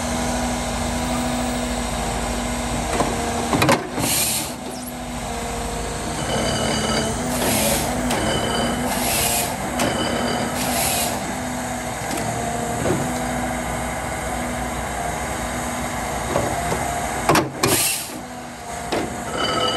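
John Deere 1270G wheeled harvester running, its diesel engine and hydraulics giving a steady drone as the crane boom and harvester head are worked. Several short bursts of hissing come through, with a sharp knock about four seconds in and another near the end.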